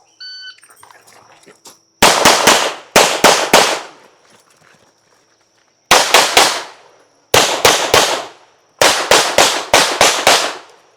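Electronic shot-timer start beep, then about two seconds later a competition handgun firing rapid strings of shots in pairs and threes, with a break of about two seconds in the middle during a magazine reload.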